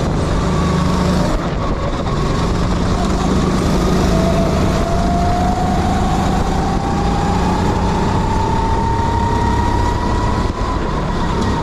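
Sodikart kart's engine running under load, its pitch climbing steadily as the kart accelerates from about four seconds in, then easing back slightly near the end, over a steady rush of noise.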